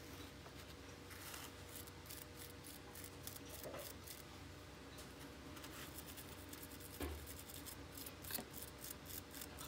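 Small wire brush scrubbing the green-corroded copper strands of a wire end soaking in muriatic acid: quick, faint scratching strokes as the corrosion is cleaned off. A soft knock about seven seconds in.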